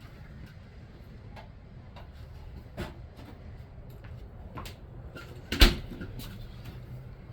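Scattered clicks and light knocks of needle-nose pliers working on the metal sleeves in the compressor's rubber mounts, with one sharp knock about five and a half seconds in.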